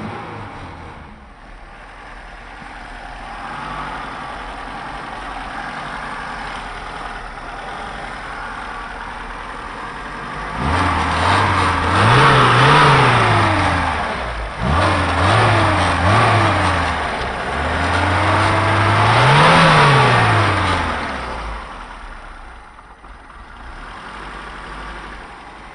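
Lada Niva's 1.6-litre petrol four-cylinder engine with twin carburettor, idling just after being started. About ten seconds in it is revved up, then given two quick blips and a bigger rev, and drops back to idle.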